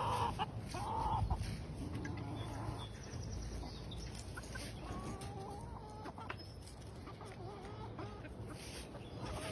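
Chickens clucking: two louder calls at the start, then softer, scattered clucks.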